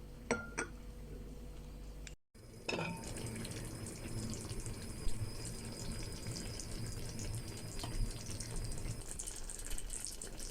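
Water running, as from a kitchen tap into a sink, starting after a cut about two seconds in and continuing steadily with small splashing ticks. Two light clicks come just before it.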